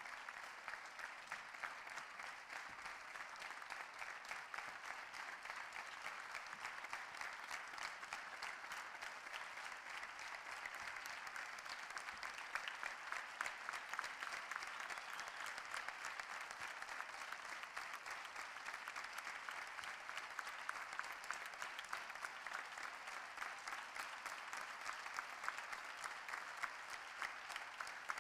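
Large audience applauding: dense, sustained clapping of many hands.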